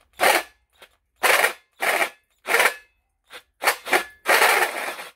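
Cordless drill with a 24 mm hole saw cutting into the thin steel top of an empty camping gas canister, run in six short grinding bursts with the longest near the end.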